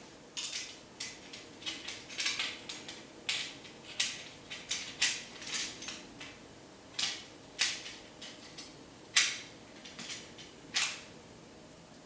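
Small plastic track parts such as runners and stoppers being handled and fitted: a string of irregular short clicks and rustles, the sharpest about nine and eleven seconds in.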